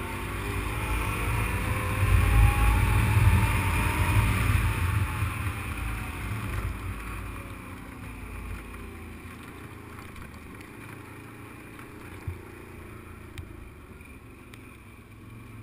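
Engine of a small off-road vehicle carrying two riders, climbing in pitch and level over the first few seconds and then easing off. Wind rushes over the microphone throughout. From about halfway it runs lower and steadier, with a single knock about twelve seconds in.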